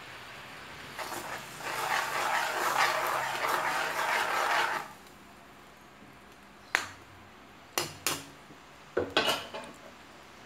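A spatula stirring and scraping bagoong (shrimp paste) sautéing with garlic and onion in a wok, a dense scraping for about four seconds. Then a few sharp clinks of the utensil against the pan.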